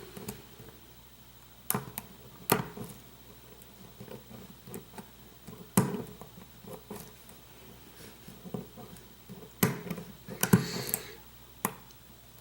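Lock picking: a pick and tension wrench working the pins of a lock core, making a handful of sharp, irregularly spaced clicks with faint scraping between them.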